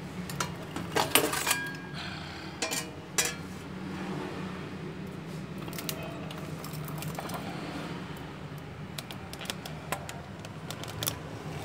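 Enamelled zinc-plate dish and its metal binder clips clinking and clanking as they are handled and unclipped, in scattered clicks, busiest about a second in and again near the end, over a steady low hum.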